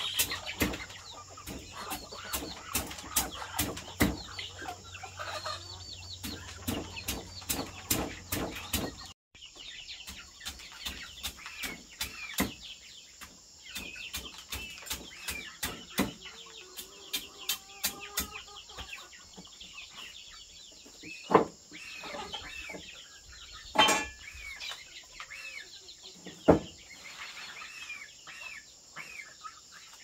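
Chickens clucking, over a fast run of sharp clicks and knocks for about the first nine seconds. The sound cuts out briefly, then the clucking goes on with a few louder knocks near the end.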